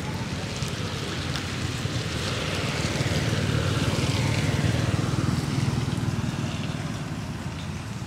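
Steady outdoor background noise: a low rumble under a hiss. It swells a little around the middle and then eases off.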